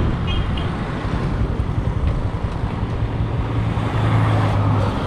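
Road traffic passing by: a motorcycle and cars driving past, with a steady low engine hum that grows louder near the end as a car goes by.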